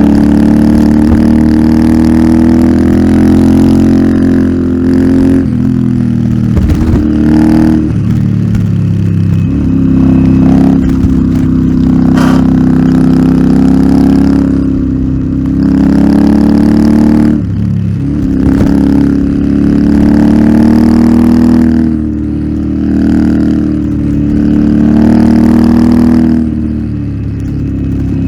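Royal Enfield Interceptor 650's parallel-twin engine through an aftermarket Nuke exhaust, under way and pulling. Its pitch climbs and falls repeatedly, with several short drops where the note breaks off before building again.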